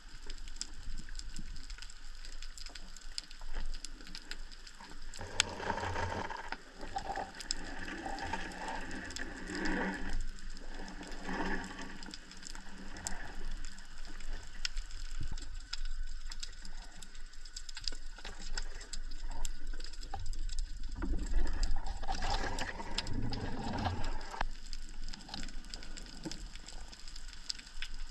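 Underwater ambience picked up through a camera housing: a constant crackle of small clicks, typical of the reef noise of snapping shrimp. Louder rushing bursts of water noise come from the freediver moving, at about five to twelve seconds in and again past twenty seconds.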